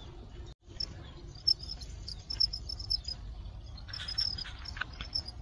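Farmed crickets chirping in short, repeated high chirps, with a burst of scratchy rustling about four seconds in.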